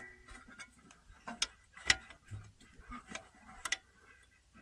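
Light, sharp clicks in pairs about half a second apart, from the carburetor linkage of a 1971 VW Beetle's flat-four being worked by hand.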